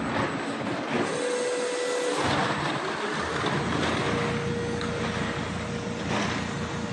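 Plastic injection moulding machine running in production: a steady mechanical whir and hiss, with a faint whine that comes in about a second in and again from about four seconds.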